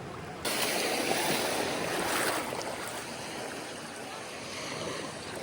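Ocean surf washing onto the beach. It starts abruptly about half a second in, swells around two seconds, then settles into a steady wash, with some wind on the microphone.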